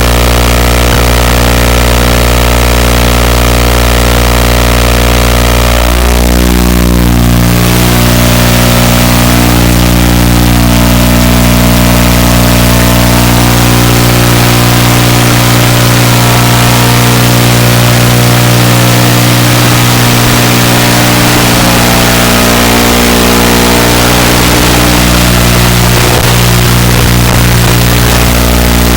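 iFlight FPV quadcopter's motors and propellers running with a loud, steady whine of several tones, the pitch shifting briefly about six seconds in, over heavy rushing noise.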